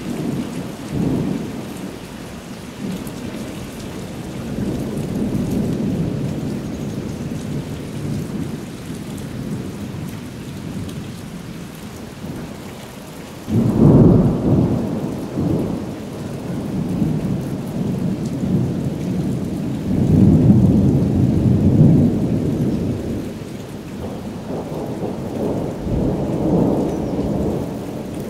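Thunder rumbling and rolling in long low swells over steady rain. About halfway through a sudden, louder peal breaks in and rolls on, and two more rolls build near the end.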